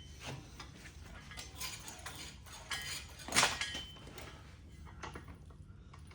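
Metal tools and suspension parts clinking and clanking as a shock is being fitted, with one louder clank about three and a half seconds in.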